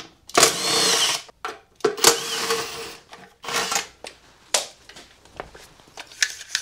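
Cordless impact driver backing out the recoil starter's mounting bolts on a Briggs & Stratton Intek single-cylinder engine, in two runs of about a second each and a shorter third. A few sharp knocks and clatters follow as the plastic recoil housing is lifted off.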